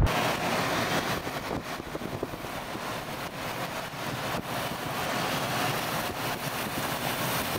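Storm wind and rain rushing past a vehicle, heard from inside it: a steady hiss with brief gusty surges.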